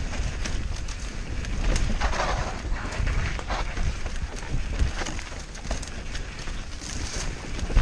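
Mountain bike descending a rough dirt trail: wind rumbling on the helmet-mounted microphone, the tyres running over dirt and stones, and the bike rattling and knocking over the bumps.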